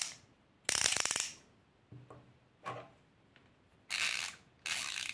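Ratchet mechanisms of two screwdrivers clicking in several quick bursts as the handles are turned back, the loudest burst about a second in. The Xiaomi's finer ratchet teeth give a softer sound, and the Craft-Tool's larger teeth a more ringing one.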